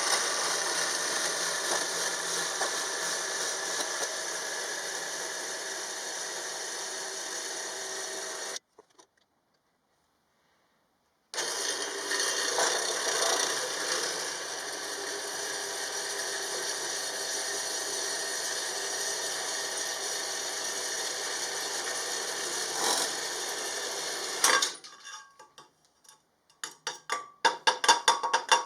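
Power tool running steadily in two long stretches with a short silent gap between, then a quick series of sharp clicks near the end.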